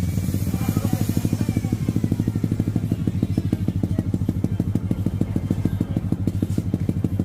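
Suzuki Raider 150's single-cylinder four-stroke engine running through an Akrapovič aftermarket exhaust, dropping back from a rev right at the start and then idling with a steady, rapid exhaust pulse.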